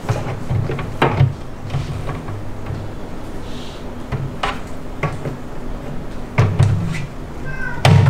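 Glass and framed parts of an Exo Terra glass terrarium being handled and fitted back together: several separate sharp knocks and clicks spread over a few seconds, over a steady low hum.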